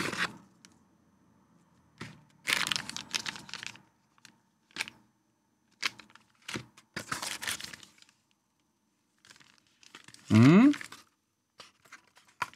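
Packaging being handled: a molded-pulp cardboard accessory tray and its wrapped contents rustling, crinkling and tearing in short scattered bursts. About ten seconds in, a short, loud sound rising steeply in pitch.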